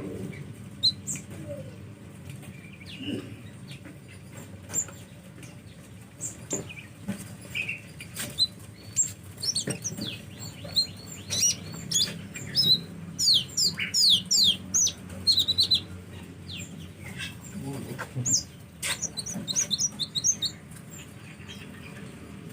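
Sunbirds calling: scattered thin, high chirps and quick twittering runs of short falling notes, busiest in the middle and again near the end, with a few sharp clicks among them.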